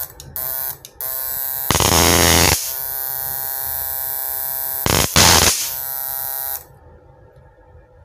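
Homemade two-MOSFET PWM high-voltage inverter buzzing with a steady pitched tone while its output is shorted without protection, with two loud bursts of arcing about two and five seconds in. A couple of short buzzes come first, and the buzz cuts off suddenly a little over six seconds in.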